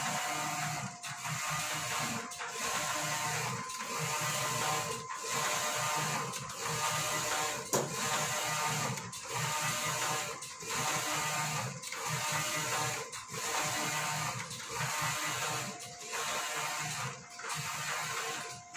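Large-format digital printer running, its print-head carriage sweeping back and forth across the film in repeated passes, with a brief break at each turn about once a second. A single sharp click comes about eight seconds in.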